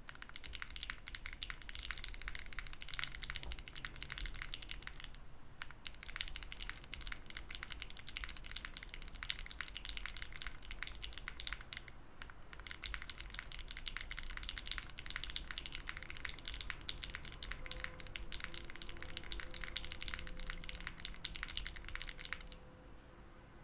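Fast continuous typing on a Hera R2 mechanical keyboard with lubed LOGA Nomyen switches on a POM plate and GMK keycaps, giving very soft keystrokes. There are brief pauses about five and twelve seconds in, and the typing stops near the end.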